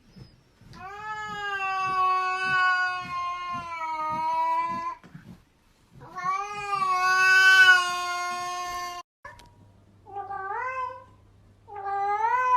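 A cat yowling in two long, drawn-out calls of several seconds each. After an abrupt cut, short rising meows follow over a low steady hum.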